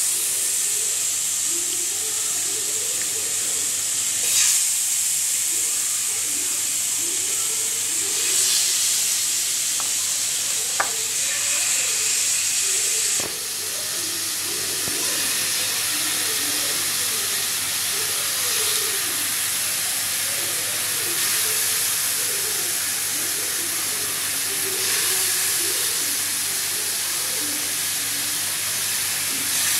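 Marinated chicken pieces sizzling as they fry in a hot oiled pan, a steady hiss that flares up a couple of times as more pieces are laid in.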